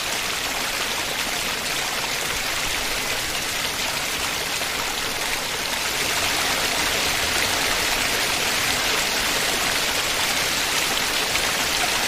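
Steady rushing of a muddy river in monsoon flood, with no breaks. About six seconds in it gets a little louder as the water cascading over a flooded waterfall takes over.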